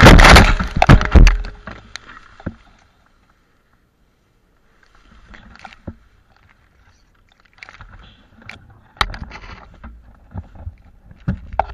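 Motorcycle crashing into tall grass: loud crashing and tumbling impacts for the first second or so, then a quiet gap, then rustling grass with scattered knocks as the helmet camera is jostled.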